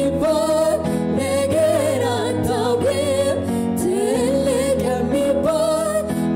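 Gospel worship song: male and female singers singing a slow melody with vibrato into microphones over sustained keyboard chords.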